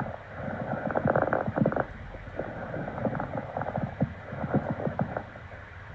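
Normal vesicular breath sounds heard through a stethoscope over the lungs: soft, muffled breathing that swells and fades, with many small clicks.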